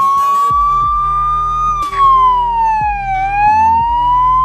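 Ambulance electronic siren sounding its first tone, a slow wail that glides up, falls about three seconds in and climbs again. This tone is the general warning that an ambulance is coming, so crossing traffic must keep clear.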